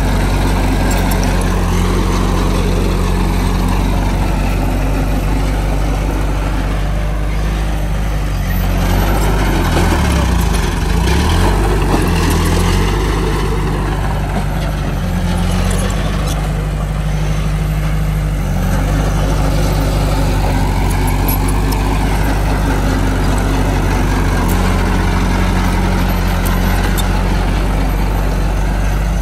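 Bulldozer's heavy diesel engine working as it pushes soil, a steady drone that rises and falls in pitch every few seconds, with the strongest swell about ten seconds in.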